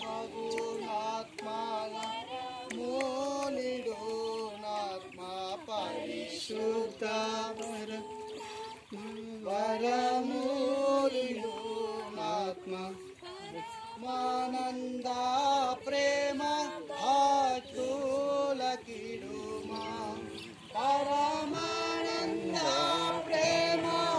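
Devotional song: singing with musical accompaniment, running continuously.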